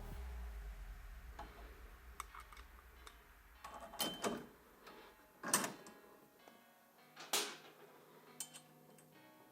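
Soft background music under brief clicking and rattling as bolts and nuts are fitted to a carrier bracket, with three louder rattles about four, five and a half and seven seconds in.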